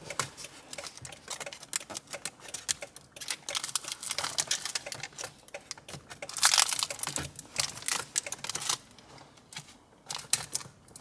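Hands handling and pressing the plastic dash trim of a Toyota Camry into place: a run of small plastic clicks and taps mixed with crinkling of the protective film over the new screen, loudest a little past halfway.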